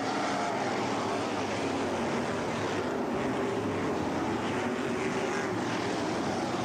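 A pack of winged sprint cars' V8 engines running hard together as they race around a dirt oval. The sound is continuous and steady in level, with several engine pitches overlapping and rising and falling as the cars go through the turns.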